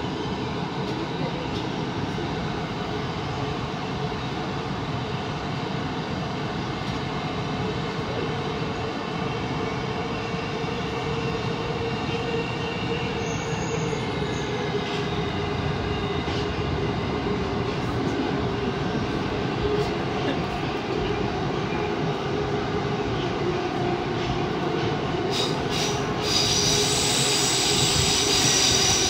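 Tokyo Metro Ginza Line 1000-series subway train running through a tunnel, heard from the front car: a steady rumble of wheels on rail with a faint whine over it. Near the end a high-pitched wheel squeal comes in and the sound grows louder.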